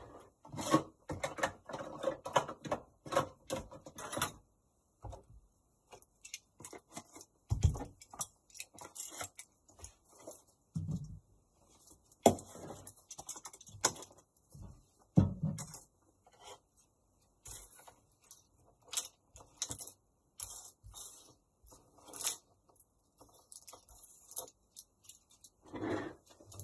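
Irregular clicks, taps and light scraping of small hard objects being handled on a work surface, with a few dull thuds scattered through.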